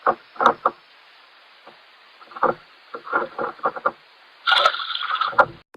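Handling noises on a kayak as a freshly caught bass is dealt with: a string of short knocks and taps, then about a second of denser rustling near the end. Everything sounds muffled through the action camera's waterproof case.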